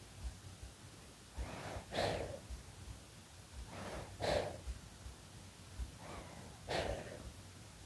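Six-month-old baby breathing in sleep, close-miked: three slow, soft breaths about two and a half seconds apart, each in two parts with the second louder.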